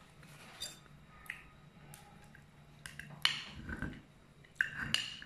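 Knife and spoon clicking and scraping against a ceramic soup bowl while cutting beef in broth: a scattering of light clinks, the loudest a little past the middle, over a faint steady low hum.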